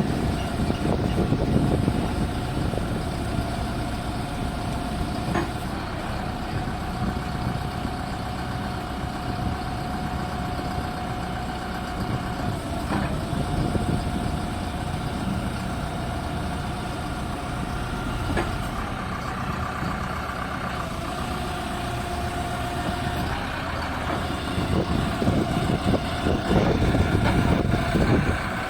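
Backhoe loader's diesel engine running steadily with a steady high whine over it, working the telescopic jib and bucket. The engine gets louder for a few seconds near the end.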